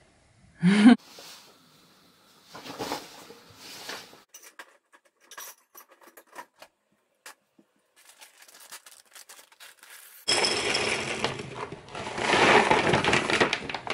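A cat gives one short meow about a second in, followed by faint clicks and handling noises. From about ten seconds in comes the loud rustle of a paper pet-food bag being handled and opened.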